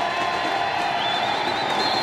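Large stadium crowd cheering and shouting steadily. About a second in, a high thin tone wavers through the din for over a second.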